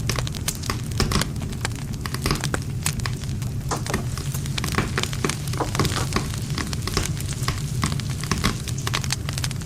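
Wood campfire crackling: dense, irregular sharp pops and snaps of burning wood over a steady low rumble of the flames.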